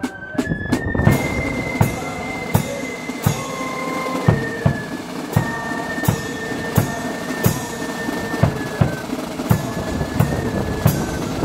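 Loyalist flute band playing: high flutes carry a melody over a steady drum beat. It starts with a few quick drum taps and the flutes come in about a second in.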